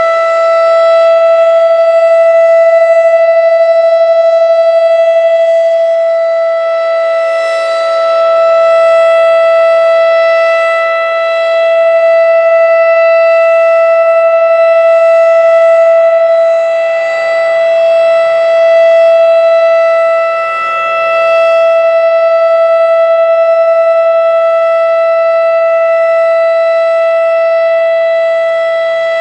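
Federal Signal Thunderbeam RSH-10A outdoor warning siren sounding a steady single-pitch alert tone with strong overtones. It grows louder and softer every several seconds as the rotating horn sweeps toward and away from the listener.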